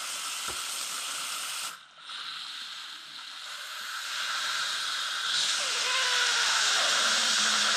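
Instant Pot steam release valve hissing during a quick pressure release, muffled by a towel laid over it, with liquid spitting out along with the steam because the pot was filled with too much broth. The hiss dips out for a moment about two seconds in, then builds back and grows louder.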